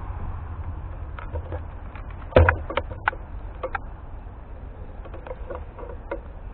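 Irregular clicks and knocks of a sports camera and its mount being jostled as the view is turned, the loudest a single knock about two and a half seconds in, over a steady low rumble.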